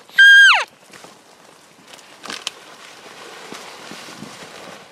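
A cow-elk mew at the start: one short, loud, high call that holds its pitch and then falls steeply at the end. After it come quieter footsteps and rustling through brush.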